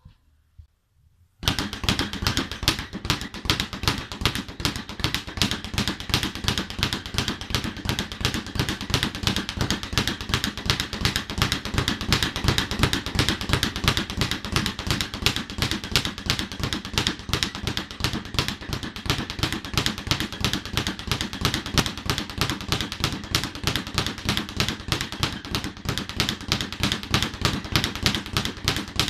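Speed bag being punched continuously against a wooden rebound board: a rapid, steady rattle of strikes that starts about a second and a half in and keeps an even rhythm.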